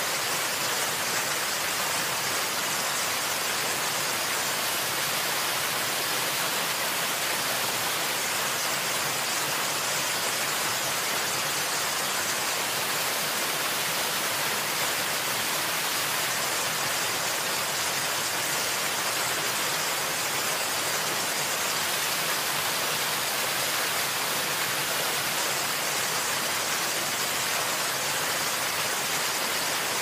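Waterfall: a steady rush of falling water, an even hiss with little low rumble, unchanging throughout.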